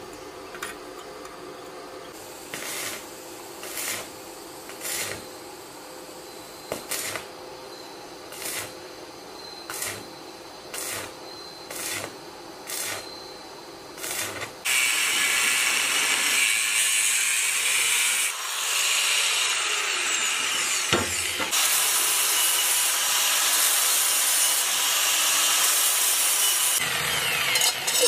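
Electric arc welding on steel plate: a string of short tack welds, each a brief sizzling burst about once a second, then a long continuous weld run that sizzles steadily for about twelve seconds, dropping out briefly twice.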